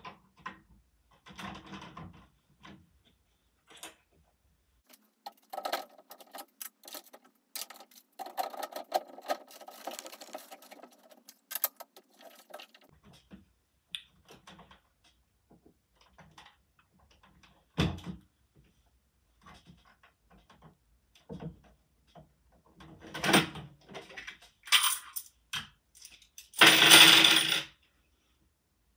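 Lego bricks and mechanism parts handled and worked by hand: plastic clicks and rattles in scattered bursts, with a long stretch of rattling early on, one sharp knock in the middle and loud clattering near the end.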